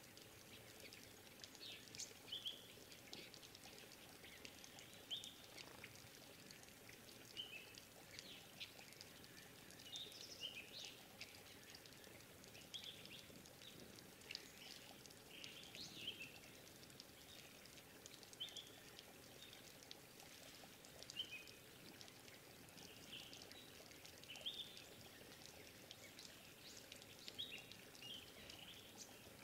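Faint wild bird calls: short, high chirps repeated irregularly, about one a second, over a soft steady background hiss.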